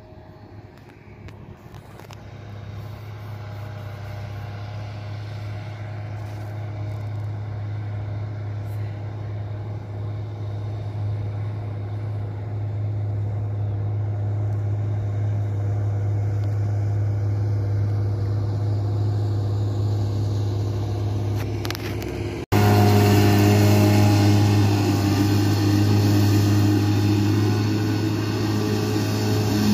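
Fendt 409 Farmer Vario tractor's diesel engine running steadily under load while mowing with a Pöttinger disc mower, growing gradually louder as it approaches. About 22 seconds in it is suddenly much louder and closer.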